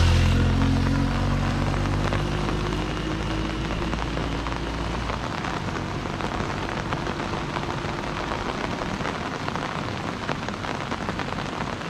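Steady rain. A motorbike engine's hum fades away over the first five seconds or so.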